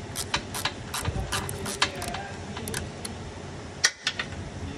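Sharp metallic clicks and taps from hand tools working a clamp loose: about four a second for the first two seconds, then two louder clicks near the end.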